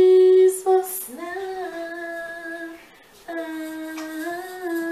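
A woman singing a slow Christian worship song, holding long drawn-out notes on 'Jesus' and the words after, with a short break about three seconds in.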